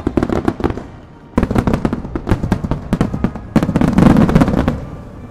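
Fireworks display: three rapid volleys of aerial shell bursts and bangs, the first right away, the next about a second and a half in and the loudest about three and a half seconds in, dying away near the end.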